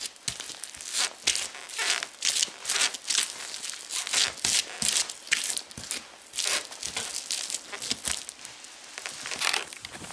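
Vibram-soled Justin patrol boots grinding and stomping mashed food into a tile floor: a run of irregular scrapes and squashing crunches, roughly one or two a second.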